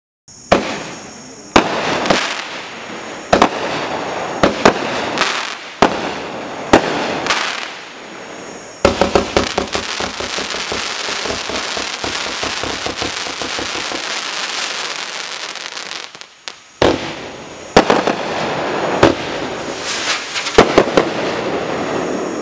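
A 500g multi-shot fireworks cake firing shot after shot in quick, irregular succession, its colour-tipped comets and breaks crackling. The crackle runs dense and unbroken through the middle stretch, pauses briefly, then more shots fire.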